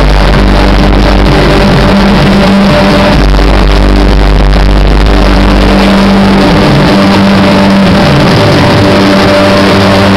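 Loud music played through a DJ sound system, with sustained notes over a heavy bass that drops out about seven seconds in.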